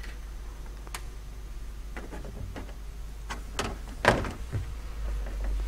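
Scattered light clicks and knocks of hands working at a Corvette's rear hatch glass and its fittings, the loudest about four seconds in, over a steady low hum.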